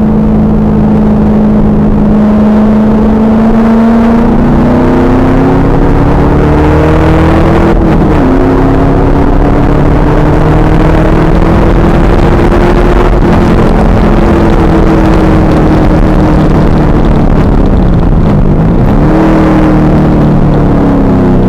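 2000 Pontiac Trans Am Firehawk's 5.7-litre LS1 V8 pulling hard on a race track: the revs climb, fall sharply at a gear change about eight seconds in, climb again, ease off, then dip and rise once more near the end. The recording is heavily overloaded and distorted.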